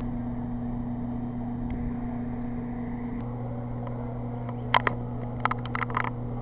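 Steady low electrical hum, with a quick run of sharp clicks or taps near the end.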